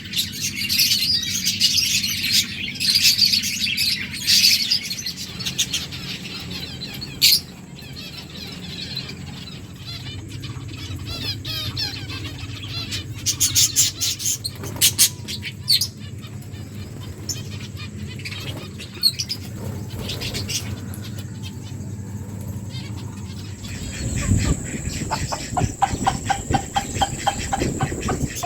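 Pet lovebirds chirping in a dense flurry for the first few seconds, then more sparsely. Scattered sharp clicks and taps come through, with a cluster midway and a quick run of ticks near the end.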